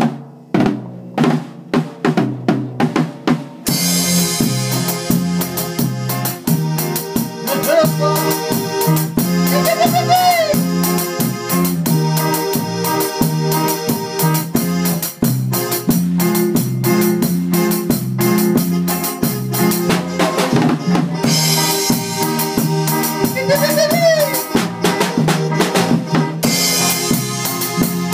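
Live band rehearsing an instrumental intro: a drum kit plays alone for the first few seconds, then electronic keyboard, a bass line and the drums come in together. The melody has a few notes that bend up and then down.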